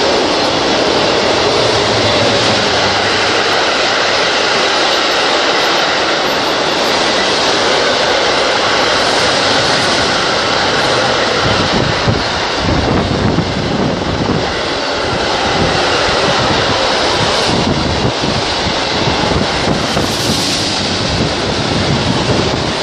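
Freight train of double-deck car-transporter wagons passing close by at speed: a loud, steady rumble and rattle of wheels on rail, with a rhythmic clatter of wheelsets over the rail joints that grows stronger about halfway through.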